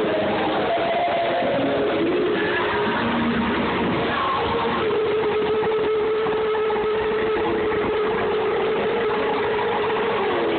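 Loud amplified live band music, thin and muffled as picked up by a phone's microphone, with a long held note from about halfway through.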